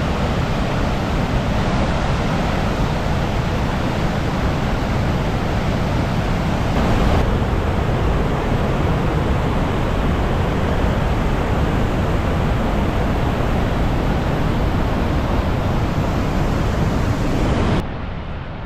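Steady, loud roar of Gullfoss, a large, powerful waterfall, mixed with wind buffeting the microphone. Near the end it cuts off suddenly to a quieter, duller rumble.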